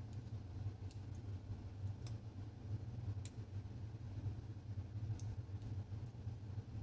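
A few light, spread-out clicks of small metal lantern parts being handled, over a steady low hum.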